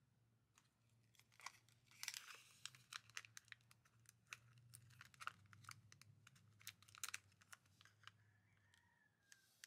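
Small plastic bag on a miniature toy loaf of bread crinkling and crackling as it is handled, a quick run of sharp little crackles that is loudest about two seconds in and again near seven seconds.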